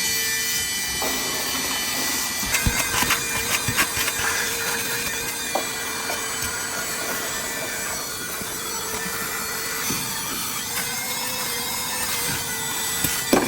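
Vacuum cleaner running steadily with a steady whine, with a run of sharp knocks and rattles about three seconds in.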